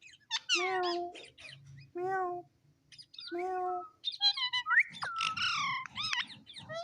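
A talking parrot calling: three short, matching calls about a second and a half apart, then from about four seconds in a quick run of high chirps and squawks.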